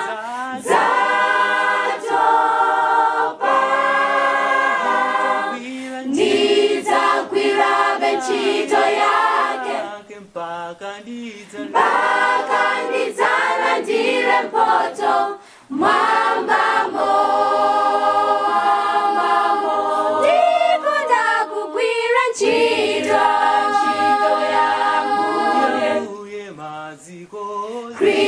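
Mixed youth choir of men's and women's voices singing a Chichewa hymn a cappella in harmony, with short breaks between phrases.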